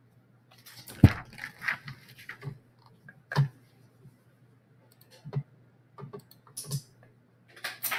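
Hands working at a computer desk close to the microphone: a scatter of sharp clicks and taps with some scraping. The loudest knock comes about a second in.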